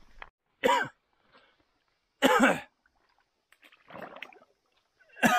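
A person's voice in short bursts: three brief exclamations spaced a second or two apart, with a softer sound about four seconds in.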